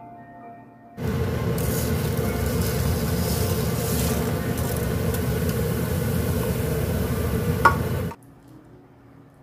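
Large pot of water at a rolling boil, bubbling steadily and loudly while coarse salt is poured in to make a brine. It starts abruptly about a second in, has one sharp click near the end, and cuts off suddenly.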